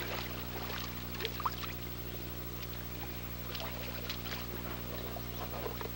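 Water sloshing and light splashing in an inflatable above-ground pool as a person wades through it, over a steady low hum.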